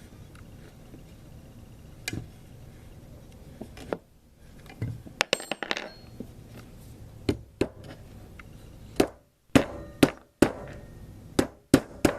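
Sharp metal clicks and clinks of an Allen wrench and loose steel cross bolts being handled and fitted on a free-float handguard. A few scattered knocks early, then a quicker run of clicks in the second half.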